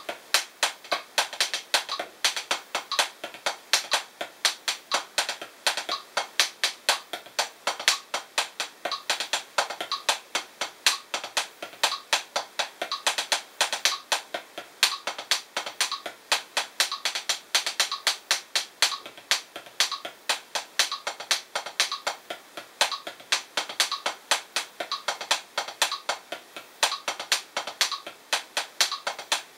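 Hickory 7A drumsticks playing the drag paradiddle #2 rudiment on a Drumeo P4 practice pad: a steady, even rhythm of crisp taps with quick double-stroke drags before the accents.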